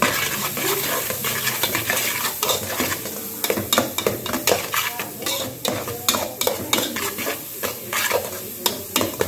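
A spoon stirring and scraping chopped onion, garlic and bell pepper frying in oil in an aluminium pot, knocking against the pot over a steady sizzle. The scrapes come quicker in the second half.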